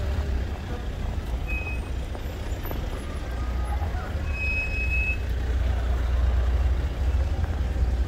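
Busy city street ambience: a steady low rumble of traffic with faint voices of passers-by. Two short high electronic beeps sound, the first about a second and a half in and a longer one about four and a half seconds in.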